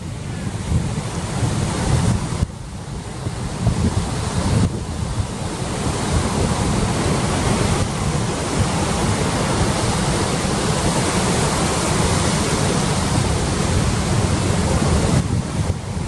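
Ocean surf breaking and washing up a sandy beach as a continuous rushing noise, dipping for a moment about three seconds in. Wind buffets the microphone underneath as a low rumble.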